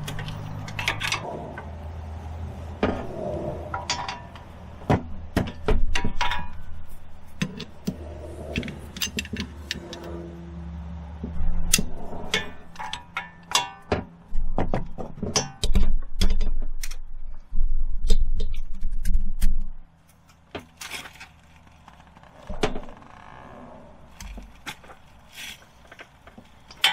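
Metal hand tools clinking and knocking irregularly against car parts during front wheel hub removal. A low steady hum runs under them and cuts off about twenty seconds in.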